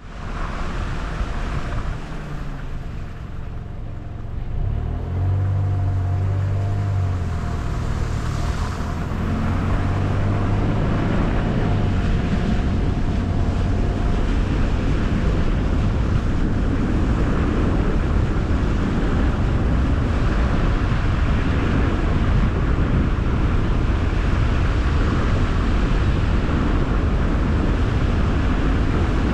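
Car driving, with tyre and road noise and the engine's hum. The engine note rises and falls over the first ten seconds or so as the car picks up speed, then settles into a steady cruising rush.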